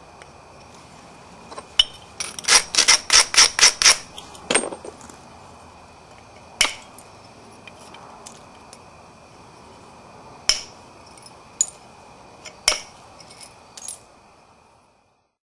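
Sharp clicks of a copper-tipped pressure flaker working the edge of a Florida agatized coral point: a quick run of about eight clicks, then single clicks a few seconds apart, as small pressure flakes come off to straighten the wavy edges.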